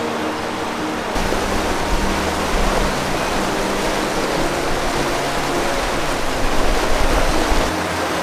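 Fast mountain river rushing over rocks and rapids, a steady loud rush of whitewater, with background music playing over it. A deeper low rumble joins about a second in and falls away near the end.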